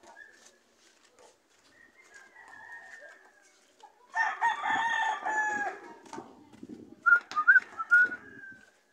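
A rooster crowing: one loud, drawn-out crow about four seconds in lasting about a second and a half, a fainter call before it, and a few short, wavering calls near the end.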